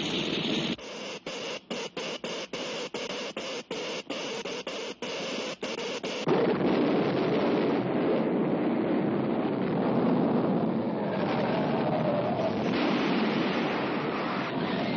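Old cartoon sound effects: a harsh electrical crackling noise that keeps cutting in and out in quick stutters. About six seconds in, a louder, steady rumbling noise takes over as the earthquake strikes.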